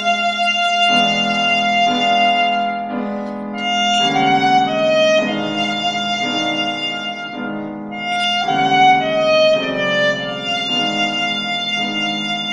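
Alto saxophone holding long notes over repeated piano chords, about two chords a second; the saxophone line steps down in pitch twice.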